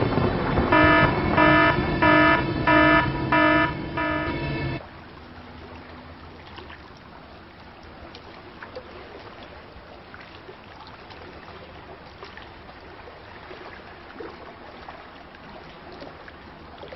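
Sound logo: surf noise under a buzzy, horn-like tone that pulses five times about two-thirds of a second apart, then cuts off suddenly about five seconds in. After that only a faint steady hiss with a few light ticks remains.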